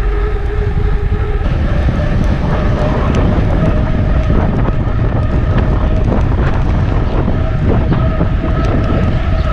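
Wind rushing over the microphone of a GoPro mounted on a mountain bike moving at speed, with a steady hum from the rolling bike whose pitch steps up about a second and a half in and then holds.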